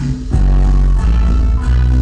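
Cumbia music played loud through a sonidero sound system, with a heavy bass line.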